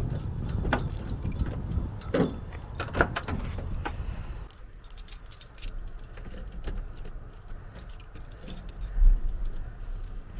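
Keys jingling with light metallic clicks, hanging at the steering column of a 1985 Ford F150 while the steering wheel is turned with the steering linkage disconnected. A single low thump comes about nine seconds in.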